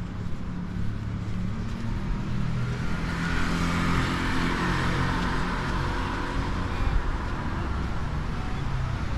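A car passing by on a street, its tyre and engine noise swelling about three seconds in and fading away by about seven seconds, over a steady low traffic rumble.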